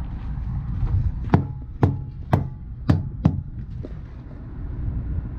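Five sharp knocks about half a second apart, over a steady low rumble: a trailer's tires being struck, as in a tire thump check on a pre-trip inspection.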